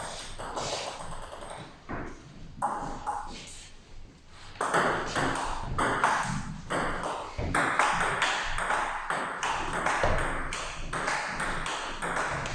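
Table tennis ball clicking off bats and table during a point: a few scattered taps at first, then a long, quick back-and-forth rally of regular ping-pong clicks.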